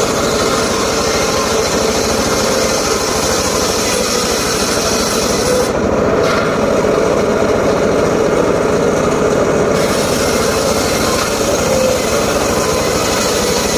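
Homemade circular saw rig running steadily and cutting johar wood, the blade's high hiss thinning out for a few seconds midway.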